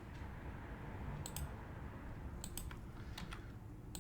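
A few scattered keystrokes on a computer keyboard, short sharp clicks in small groups of two or three.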